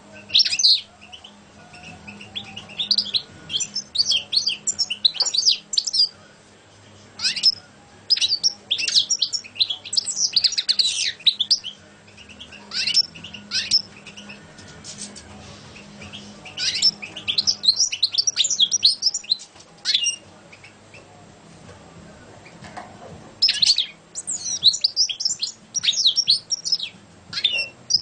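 Caged European goldfinch singing: phrases of rapid, high twittering and trilled notes with short pauses between them, about six phrases in all.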